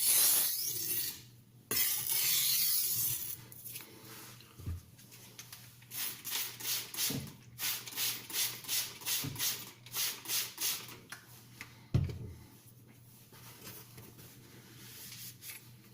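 Stainless kitchen knife blade stroked across a water-soaked silicon carbide sharpening stone, a gritty scraping hiss: a few long strokes, then a run of short, even strokes about two a second. A single knock about twelve seconds in.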